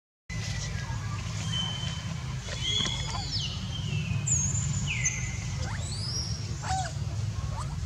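A series of thin, high-pitched animal calls, some held on one note and some sliding down or up, over a steady low hum.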